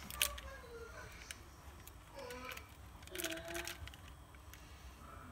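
A faint, distant voice, broken by a few light clicks and taps, the loudest cluster about three seconds in.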